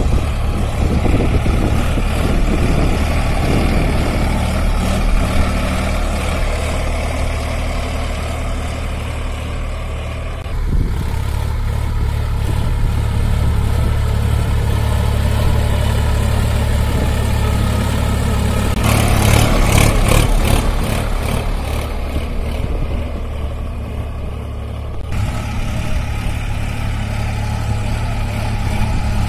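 Solis 5015 4WD tractor's three-cylinder diesel engine running under load as it pulls a cultivator through the soil. The engine note is steady but shifts abruptly twice, about a third and two-thirds of the way through.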